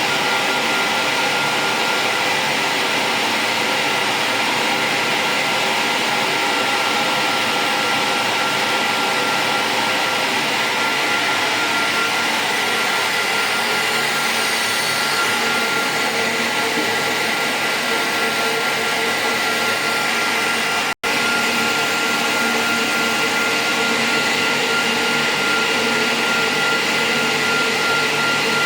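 Steady whoosh of cooling fans on an IPL laser hair-removal machine's power supply running under test, with a thin steady whine over it. The sound cuts out for an instant about two-thirds of the way through.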